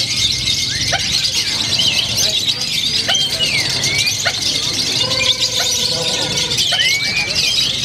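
A chorus of many caged lovebirds chattering at once: dense, overlapping high chirps and squeaks. A steady pitched tone sounds for about a second and a half some five seconds in.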